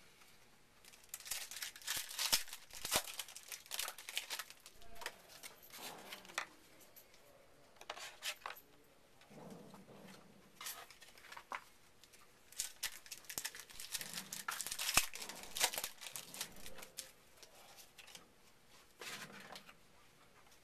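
Trading card pack wrappers being torn open and crinkled, and cards handled: a run of irregular crackles and rips, sparser near the end.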